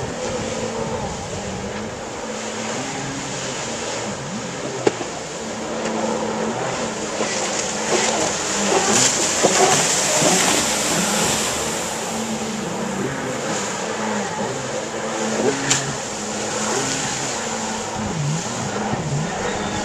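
Jet ski engines running on the water, their pitch shifting as they throttle up and down, growing louder for a few seconds in the middle as one passes close. A sharp click comes about five seconds in and again about sixteen seconds in.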